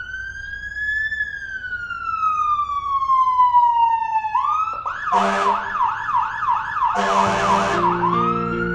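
Electronic emergency-vehicle siren: a long wail that rises briefly, then falls slowly for about four seconds, before switching to a fast yelp of quick rising sweeps, about two or three a second. Music comes in underneath from about halfway.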